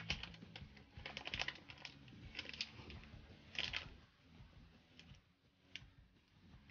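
Gold foil snack wrapper crinkling in the hand: quick runs of small crackles over the first four seconds, then a few faint single clicks.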